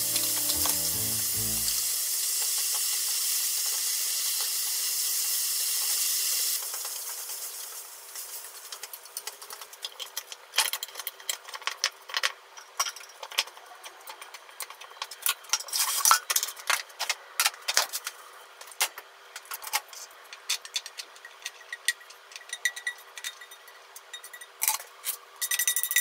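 Minced beef frying in soy sauce, mirin, sake and gochujang in a frying pan, a steady sizzle as the liquid cooks off, which stops about six seconds in. After that come scattered light clicks and taps of chopsticks against a small wooden bowl as spinach namul is mixed.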